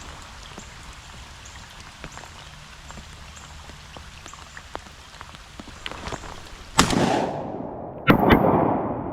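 Steady patter of rain, then shotgun shots: one about two-thirds of the way through, and two more in quick succession near the end.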